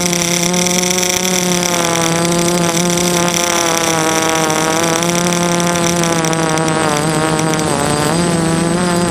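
DJI F330 quadcopter's four brushless motors and propellers whining steadily in flight, heard up close from the camera mounted on the frame. The pitch wavers with throttle changes and dips and recovers about three-quarters of the way through.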